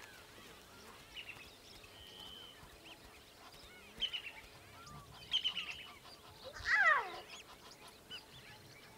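Birds calling in the bush: scattered short chirps and a brief whistle, with one louder call about seven seconds in that falls steeply in pitch.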